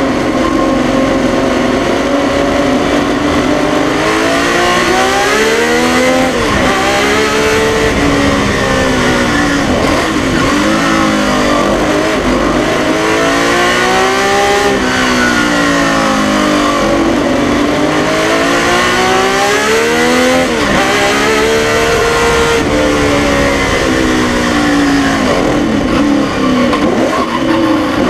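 The 1972 Tecno PA 123/3 Formula One car's 3-litre naturally aspirated 180-degree V12 engine, heard on board at full volume. Its pitch climbs and drops again and again as the car accelerates and lifts off between corners.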